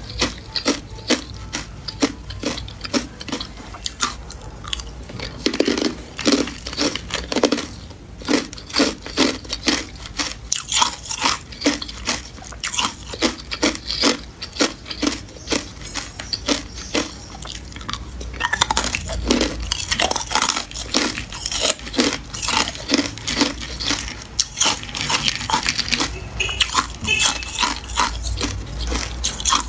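Hard clear ice cubes being bitten and chewed: a steady run of loud, sharp crunches, two or three a second.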